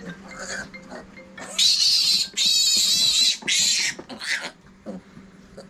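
Young Meishan piglet squealing loudly as it is picked up and held, in four high-pitched squeals that begin about a second and a half in. The longest squeal comes in the middle.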